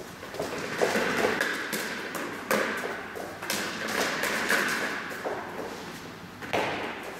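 Irregular thumps and taps, roughly one a second, each with a short echo of a large hall, from a man jogging across a matted floor carrying a rubber ball.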